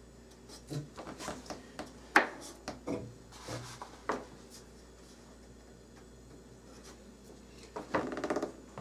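Small wooden soleplate pieces being handled and slid into place on the floor: scattered rubbing and light knocks, with the sharpest click about two seconds in, then a short pitched sound near the end.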